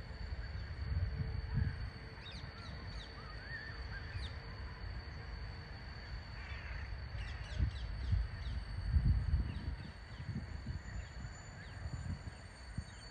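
Birds calling in the trees, a scatter of short high chirps and calls, over gusts of wind buffeting the microphone that are strongest a little after the middle.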